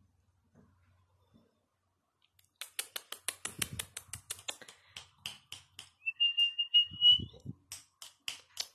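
A fast train of sharp clicks, about four or five a second, starting a couple of seconds in. About six seconds in, a short high whistle rises slightly in pitch over about a second, with a few low thumps around it.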